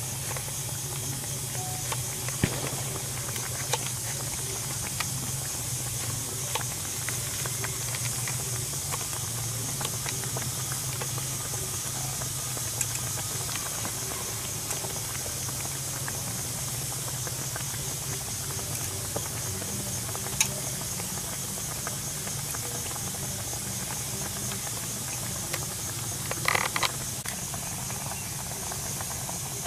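Knife slicing cucumber and carrot on a wooden cutting board, with a sharp knock now and then and a short clatter near the end, over a steady high hiss and a low hum.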